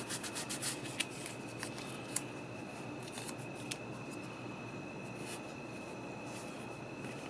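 Quick scraping strokes on the metal terminals of a 1989 Chevrolet truck dimmer switch being cleaned by hand for about the first second. After that come a few light clicks as the switch is handled.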